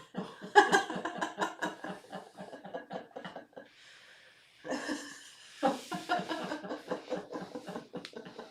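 A person laughing in two long bouts of quick, repeated laughs, with a short pause between them.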